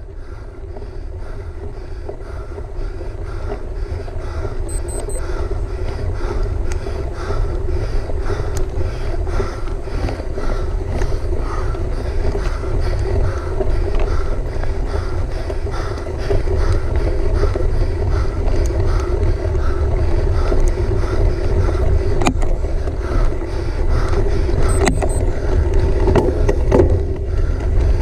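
Wind buffeting the microphone of a camera carried on a mountain bike during a race, a steady rumble that builds in loudness over the first half, with a faint repeating pattern and a few sharp clicks or knocks near the end.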